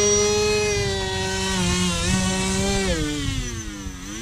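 Electric motor and caged air propeller of an RC rescue boat running on the ground, a buzzing whine whose pitch rises and falls with the throttle, sagging to its lowest near the end and then climbing again. The motor runs fine after being submerged, on a battery that is nearly dead.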